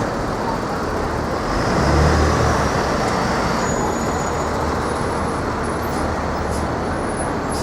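Steady road traffic noise, with one vehicle's low rumble swelling briefly about two seconds in.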